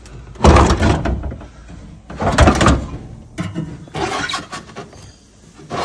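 Metal-cased hybrid battery pack of a Toyota Camry Hybrid being slid out of its mounting in the trunk: two loud scraping drags about half a second and two seconds in, then lighter scrapes and knocks.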